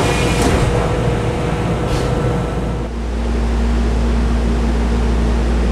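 The sliding doors of a Senboku Rapid Railway 7020-series commuter car shut with a knock about half a second in, with a second knock about two seconds in, over rumbling train noise. About three seconds in the sound changes suddenly to the steady low hum inside a stationary Senboku 7000-series car standing with its doors open.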